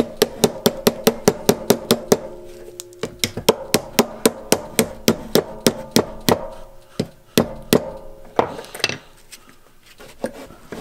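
Ball-peen hammer striking a rusted, seized go-kart roller chain clamped in a small bench vise, to work the stiff links free. It goes in quick runs of about five or six metallic, ringing blows a second, with a short pause about two and a half seconds in. It slows to two last blows near the end of the run and then stops.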